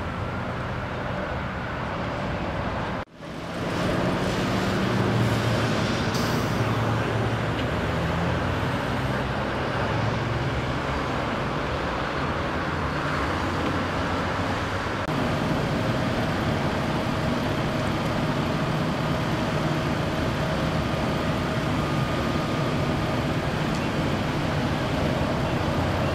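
Steady freeway traffic noise as cars pass at speed in the open lanes, cutting out briefly about three seconds in.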